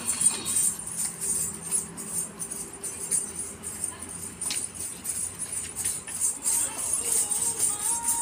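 Small bells on a horse jingling in an uneven, shaking rhythm as it steps and prances during training.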